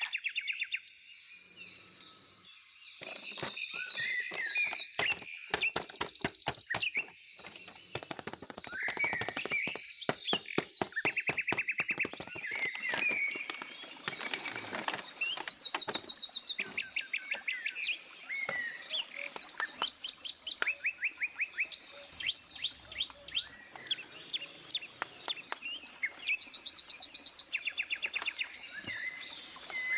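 Small birds chirping, with many quick high calls and fast trills repeating throughout.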